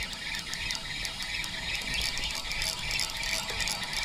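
Spinning reel being cranked fast, its gears rattling and clicking as a hooked fish is reeled in.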